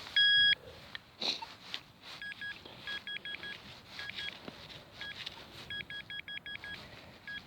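Handheld metal-detecting pinpointer switching on with one beep, then beeping in short runs of quick, same-pitched pulses from about two seconds in as it is worked through the dug soil near a buried metal target.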